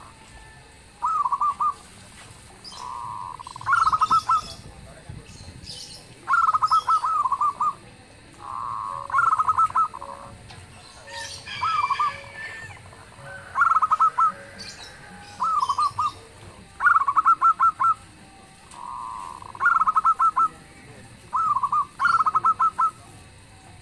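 Zebra doves (perkutut) singing: rapid stuttering, purring coo phrases alternating with smooth coo notes, repeated about every two seconds.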